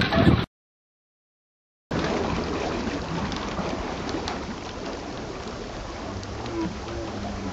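Wind buffeting the microphone cuts off about half a second in, leaving a second and a half of dead silence. Then comes the steady rushing and splashing of sea water along the hull of a sailboat under way.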